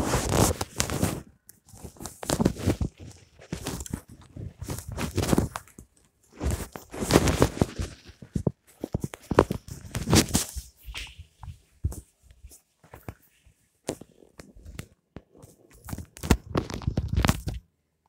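Handling noise from a phone being moved about by hand: uneven bursts of rustling with sharp knocks and clicks, broken by short silent gaps.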